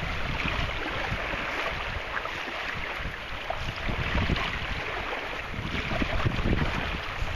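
Wind buffeting the microphone: a steady rushing noise with gusty low rumble.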